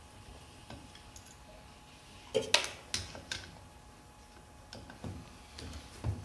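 Light clicks and taps of small metal carburetor parts being handled as the accelerator pump cover is unscrewed from a VW carburetor. There is a short run of sharper clicks a couple of seconds in, and a few scattered taps near the end.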